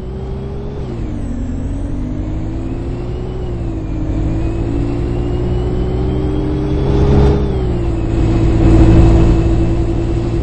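Bus drivetrain heard from inside the bus as it accelerates: a whine rises in pitch, drops back, and climbs again three times over a steady low rumble. A louder rush of noise comes about seven seconds in and again near the end.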